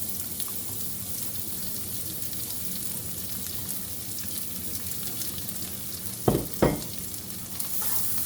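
Chopped onion sizzling in hot bacon grease in a pot, a steady hiss of frying. Two sharp knocks come close together a little past six seconds in.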